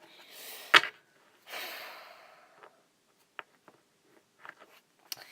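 A single sharp, loud click or knock less than a second in, between two breathy exhales close to the microphone, then a few faint clicks of handling.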